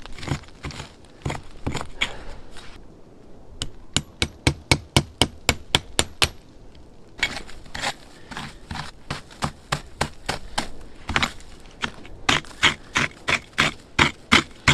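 A metal tent peg being hammered into snow and frozen ground: runs of rapid, sharp strikes, about five a second, with a crunch of packed snow between the runs.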